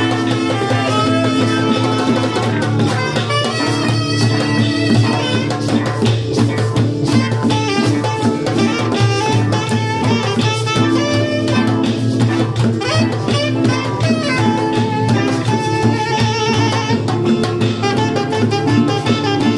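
Small live band playing: a saxophone carries a moving melody over a steady low bass line, with guitar and percussion keeping a beat.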